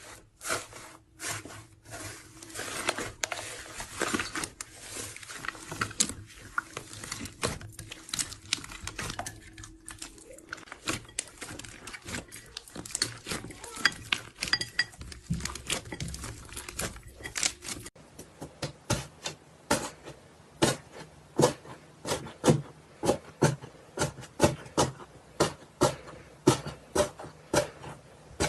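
Hands squishing and poking slime, making a stream of sticky clicks and pops. The sounds come thick and irregular at first, then settle into an even rhythm of about two pops a second in the last third.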